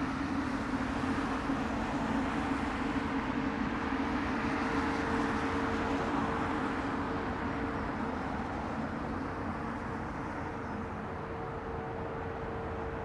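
Jet airliner engines running, a steady rumble with a low hum that swells slightly and then eases, the lower tone dying away past the middle.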